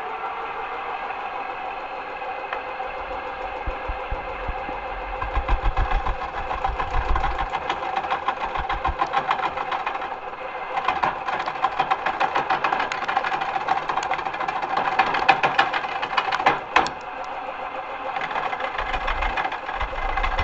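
Craftsman wood lathe running with a steady motor whine. From about five seconds in, a carbide turning tool cuts the spinning wooden spindle, adding a fast, rough, rhythmic scraping. There is one sharp click late on.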